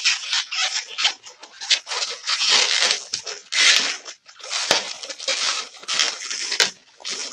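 Latex 260 modelling balloon being twisted and squeezed by hand, the rubber rubbing in irregular scratchy bursts with a few sharp clicks.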